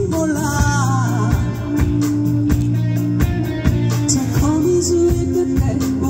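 Live band playing amplified: a woman singing a melody into a microphone over electric guitars, bass guitar, drum kit and keyboard.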